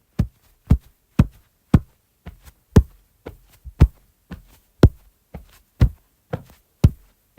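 Footsteps walking at a steady pace, about two steps a second, each a short, sharp, low thud. From about two seconds in, the steps alternate louder and softer.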